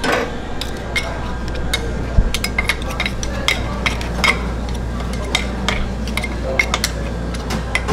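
Metal spatulas scraping and tapping on a frozen stone slab as ice cream is chopped and folded: a busy run of short clicks and scrapes, over a steady low hum.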